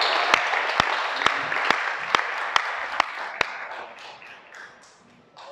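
Audience applause and cheering for an announced finalist, dying away over about four seconds. Loud single claps close by, about two a second, ring out over it and stop about three and a half seconds in.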